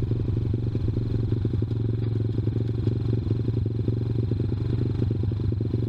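ZS190 Grom-clone mini motorcycle's single-cylinder four-stroke engine running steadily under way, with a dense even beat of firing pulses.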